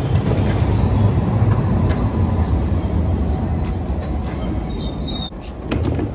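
Light-rail train pulling into an underground station and braking to a stop: a loud running rumble that fades as it slows, with a high squeal from about two seconds in that cuts off suddenly as the train halts. A few sharp knocks follow near the end.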